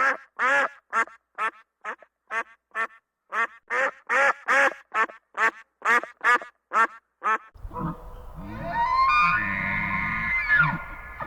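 An animal calling in a rapid, even series of short calls, about two or three a second, which stops about two-thirds of the way through. A different sound follows: a noisy background with steady pitched tones.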